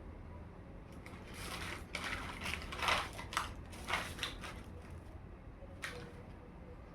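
Hands handling toy packaging and small toy pieces: a run of crackling, rustling and clicking handling noises over a couple of seconds, then a single sharp click near the end.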